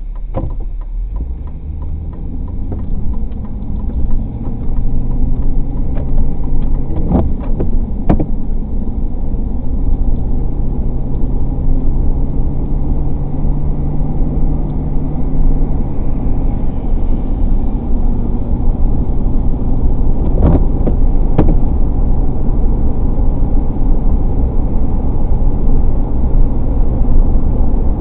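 Car cabin noise while driving on a wet road: engine and tyre rumble grows louder over the first few seconds as the car picks up speed, then holds steady, with a few sharp clicks.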